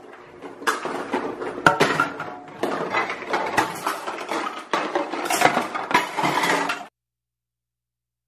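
Toy dishes and cookware clattering and knocking together as they are dropped and handled in a kitchen sink for washing. Stops suddenly near the end.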